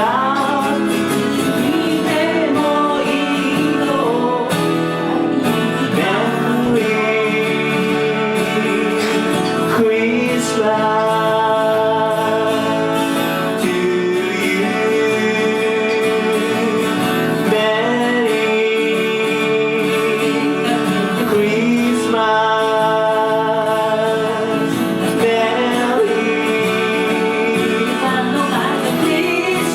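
Music from a cover of a Japanese ballad: guitar accompaniment under a melody line of long, wavering held notes.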